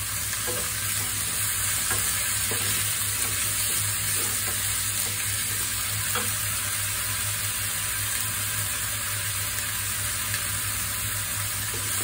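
Chopped fresh methi (fenugreek) leaves sizzling in hot oil in a non-stick pan as they are sautéed, stirred with a wooden spatula that knocks and scrapes the pan now and then. A steady low hum runs underneath.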